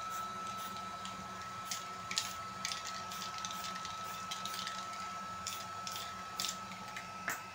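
Aerosol spray-paint can giving about a dozen short, irregular puffs of spray, each a brief hiss. Underneath, a steady high whine and a low hum run throughout.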